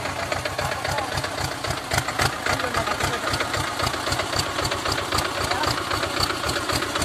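Sonalika tractor's diesel engine idling steadily, with an even, rapid firing beat.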